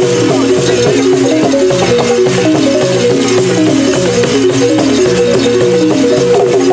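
Traditional West African percussion ensemble playing: a repeating pattern of short pitched notes in a low register over continuous rattling and shaker-like strikes.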